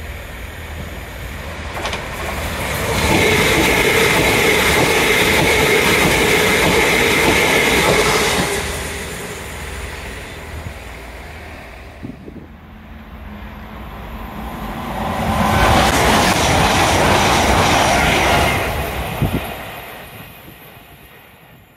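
Two passenger trains running through the station at speed one after the other: each pass is a loud rush of wheels on rail lasting about five seconds, with a steady whine riding on it, and it fades off after the second one.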